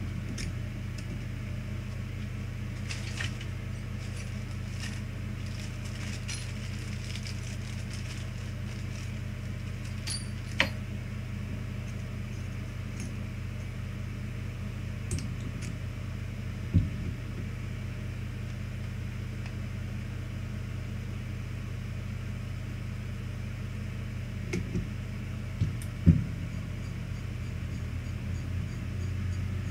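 Steady low hum of workbench equipment, with a few small sharp clicks and taps scattered through it. Near the end a faint pulsing joins the hum.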